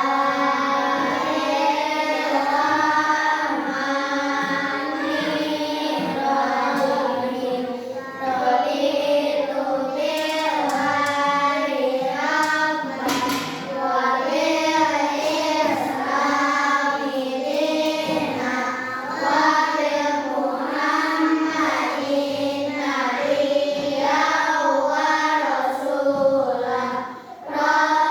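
A class of young children reciting a prayer together in a sing-song unison chant, continuous with a short break near the end.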